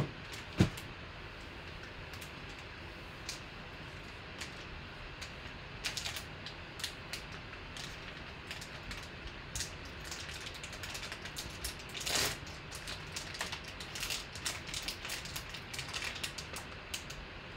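A single thump just after the start, then a foil card-pack wrapper crinkling and crackling in rapid, irregular clicks as it is torn and peeled open by hand. A longer tearing rustle comes about twelve seconds in.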